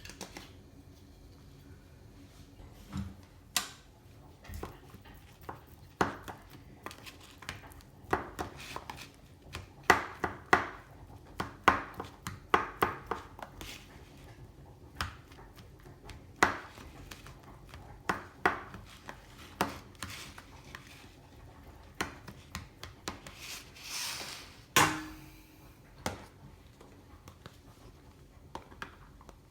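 Kitchen food-preparation sounds: irregular knocks and clinks of a knife and utensils on a board and dishes, with a brief louder scrape about 25 seconds in.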